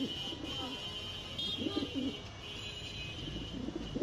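Pigeons cooing in repeated low, throaty phrases, one about a second and a half in and another starting near the end.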